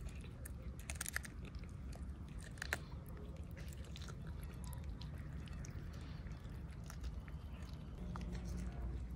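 A cat chewing and biting into a cooked whole chicken: a run of short sharp clicks and snaps of teeth on meat and bone, densest in the first few seconds, with one loudest snap about two and a half seconds in. Near the end, kittens eating from a plate of chicken and fish.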